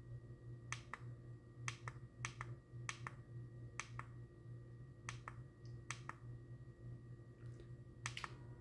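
Plastic buttons on a wireless thermostat being pressed, giving sharp clicks that mostly come in close pairs, about eight pairs spread over several seconds. A steady low hum runs underneath.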